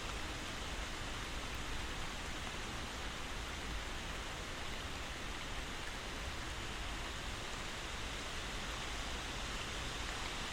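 Steady rain, an even hiss with no breaks or single drops standing out.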